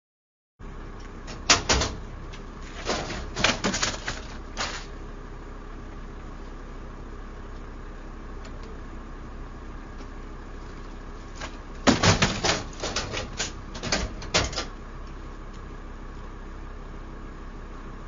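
Ambulance gurney (stretcher) being slid out of and back into an ambulance: two bursts of metal clattering and clunking from the stretcher frame, legs and latches, about ten seconds apart, over a steady low hum.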